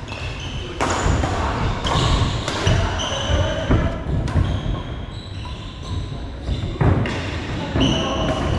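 Badminton rally: rackets striking the shuttlecock in several sharp hits, with shoes squeaking on the court floor and thudding footfalls between them.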